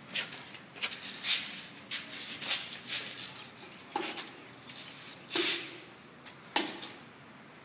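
A camper trailer's stone shield being hooked back onto the front of the trailer: a series of irregular knocks, clunks and scrapes, the loudest about five seconds in.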